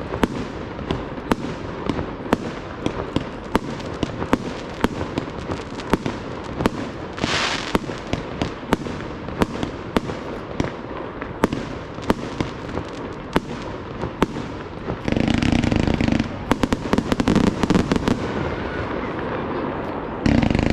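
Fireworks display: a steady run of sharp bangs from shells bursting overhead, with a brief hiss about a third of the way in. About three-quarters in, the firing turns into a louder, dense stretch that comes back just before the end.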